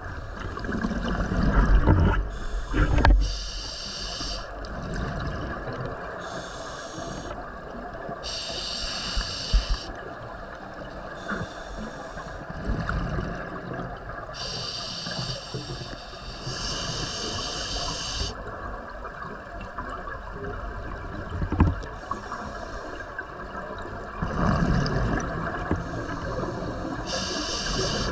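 A scuba diver breathing through a regulator underwater: a hiss with each breath in, repeating every few seconds, and gurgling exhaust bubbles between the breaths.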